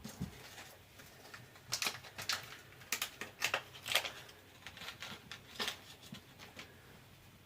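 A small kit of metal screws and washers being opened and sorted by hand: irregular light clicks and rustles, a dozen or so scattered through the middle.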